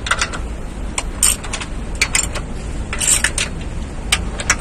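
Hand wrench clinking and clicking against the bolts of a truck's clutch pressure plate as they are worked, about a dozen sharp irregular metallic clicks spread over a few seconds.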